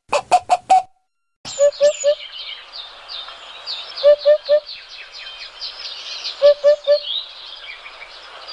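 Birdsong: a chorus of small birds chirping and trilling, with a lower three-note call repeating about every two and a half seconds. It opens with four quick, loud notes, then goes silent for about half a second before the chorus starts.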